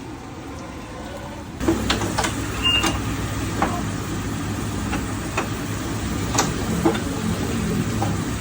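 A metal milling machine running while it mills a steel screw flight. Its steady low hum jumps up about a second and a half in, with scattered sharp clicks and ticks over it.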